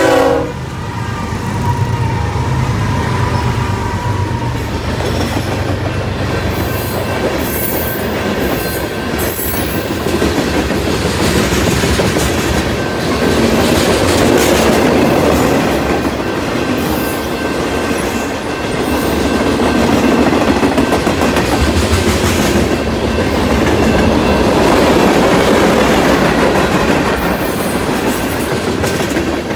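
BNSF freight train passing close by at a grade crossing. Its horn cuts off right at the start, and the diesel locomotives rumble past for the first several seconds. Then the freight cars roll by with a steady rumble of wheels on rail and a clickety-clack over the rail joints, swelling and easing as the cars pass.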